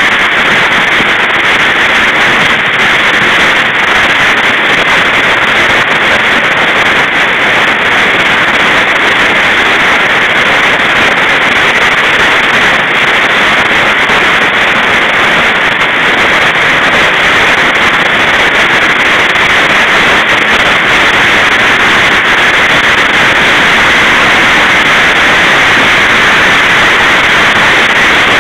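Heavy hailstorm: hailstones pelting down in a dense, steady roar that does not let up.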